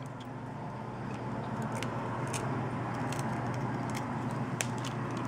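Knife tip scraping and clicking against the metal camera-glass frame on a Samsung Galaxy Note 4 as it is pried around and lifted off. Scattered sharp ticks over a steady low hum.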